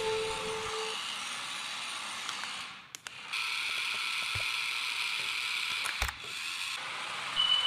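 Small electric motor and plastic gears of a toy RC transformer car whirring steadily, with a brief break about three seconds in and a sharp click about six seconds in.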